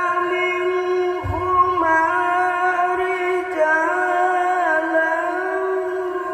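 A man's voice reciting the Quran in the melodic tilawah style, holding long, ornamented notes that slide between steady pitches.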